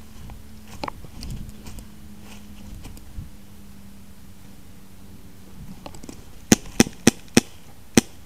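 Airsoft gun firing a quick string of single shots near the end: five sharp pops, most about a third of a second apart.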